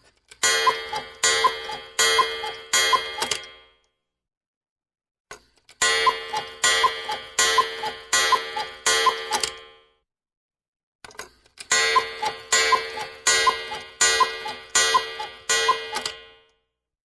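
Cuckoo clock striking the hours with its two-note cuckoo call repeated at an even pace. It plays three rounds, each opened by a small mechanical click and separated by silence, and each round is longer than the last.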